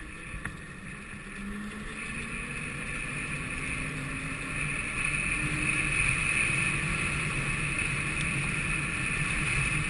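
Home-built 48 V electric go-kart driving along a paved street: a steady whine from the electric motor and chain drive over tyre and wind noise, getting louder over the first five seconds or so.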